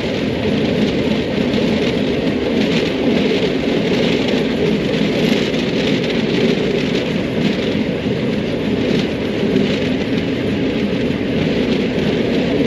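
Steady running noise of a steam-hauled vintage train heard from on board: wheels rumbling over the rails with rushing air, loud and even throughout.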